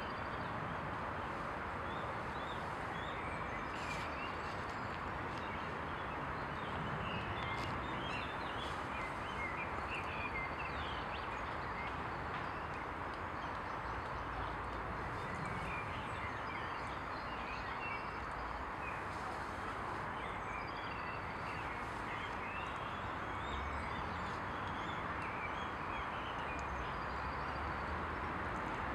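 Birds chirping: many short, high calls scattered throughout over a steady background hiss.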